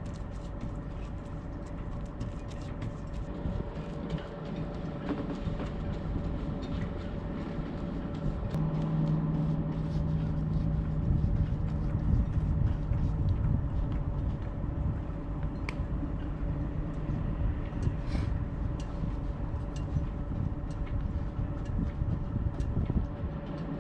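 Steady mechanical drone with a constant hum, joined about a third of the way in by a deeper, louder hum, with a few faint clicks.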